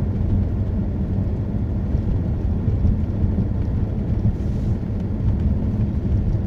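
Steady low rumble of a car's engine and tyres on the road, heard inside the cabin while cruising.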